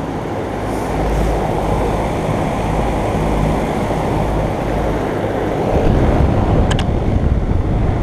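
Commercial packaged heat pumps (Carrier Gemini and Ruud Achiever) running in heat mode: their outdoor fans blow and the units hum as a steady whooshing rumble. It gets louder about six seconds in as the microphone comes over a spinning condenser fan, with a couple of short clicks near the end.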